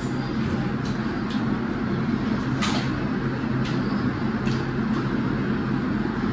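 A steady low mechanical hum, with a few short clicks scattered through it.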